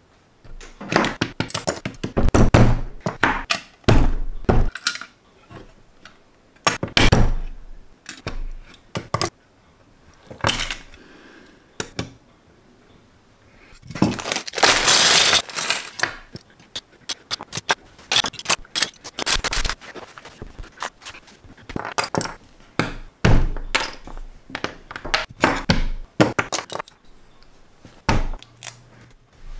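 LEGO bricks clicking and knocking against each other and the tabletop as pieces are picked up with metal tweezers and pressed together. About halfway through there is a louder two-second rattle of many small plastic pieces as the second bag of bricks is poured out and spread, followed by more scattered clicks as they are sorted.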